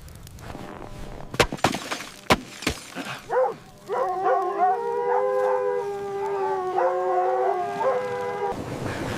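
Sharp crackles and pops, typical of a wood fire, for the first few seconds, then a chorus of several canines howling together in long, held notes for about five seconds, stopping abruptly near the end.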